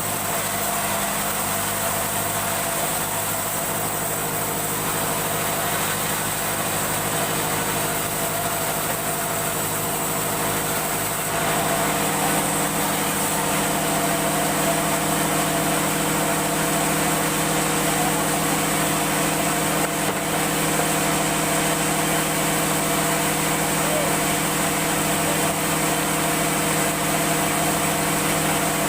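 A woodworking machine's motor running steadily with a constant hum. About eleven seconds in, its note shifts and it gets slightly louder, as if the load changes.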